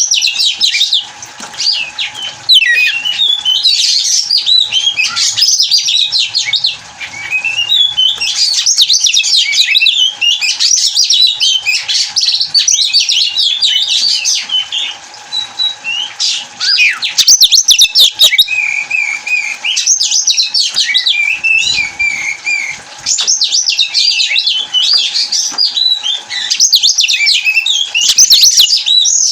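Oriental magpie-robin (kacer) singing a fast, varied song of whistles and harsh notes in long phrases with brief pauses, the full song of a bird in breeding condition.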